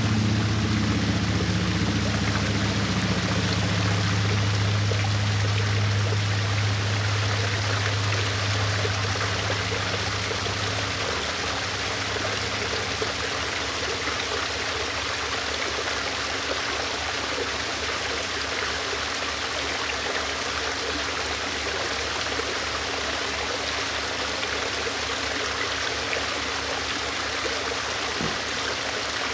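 Backyard pond waterfall with water splashing and trickling steadily. A low hum underneath drops away about ten seconds in.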